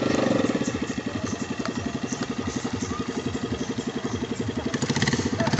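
Small single-cylinder ketinting longtail boat engine of the 6.5 hp class running slowly with an even putt-putt. It is louder and busier at the start and again about five seconds in.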